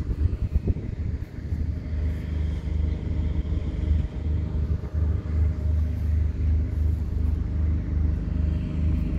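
A steady low engine rumble with a regular throb of about two pulses a second and a hum, with a few sharp knocks in the first second or so.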